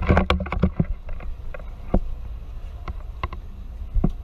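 Sharp knocks and clatter of footsteps and handling on the deck of a tourist submarine, a quick cluster in the first second and then single knocks, over a steady low rumble.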